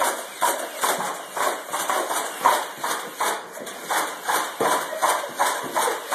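Nerf foam-dart blaster firing in a rapid series, sharp mechanical clacks about two a second.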